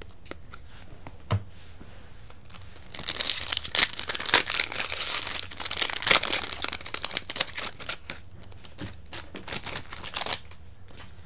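A foil Yu-Gi-Oh! booster pack wrapper being torn open and crinkled. The crackling is dense from about three to seven seconds in, and lighter crinkles follow until near the end.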